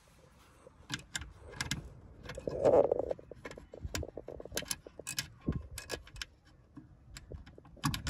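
Scattered light metallic clicks and rattles as seatbelt hardware and a bolt are handled and fitted by hand at the belt retractor, with a duller, louder knock about three seconds in.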